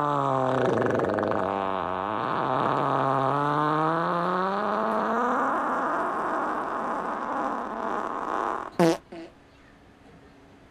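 A long drawn-out fart from a gassy dog being stretched, low and wavering up and down in pitch for about eight seconds. It ends in a short sharp sputter.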